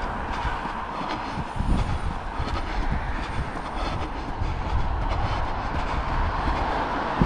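Steady rumbling noise and irregular low bumps from a camera carried on a run beside a road, with traffic noise mixed in.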